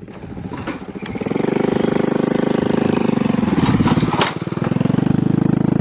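Motorcycle engine running close by at low, steady revs, starting about a second in. Partway through it dips in revs and picks up again, with a sharp click about four seconds in.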